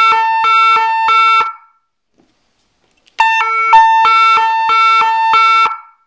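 Boom Blasters European police siren car horn, a 12-volt electronic horn, sounding a loud two-tone siren that switches back and forth between two pitches about three times a second. It comes in two blasts: the first cuts off about a second and a half in, and the second starts about three seconds in and stops near the end.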